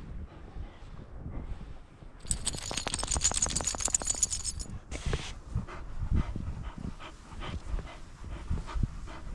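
Shar-pei dogs trudging through deep powder snow close by: the snow crunches and crackles in short bursts as they push through. About two seconds in comes a dense crackle lasting about two seconds.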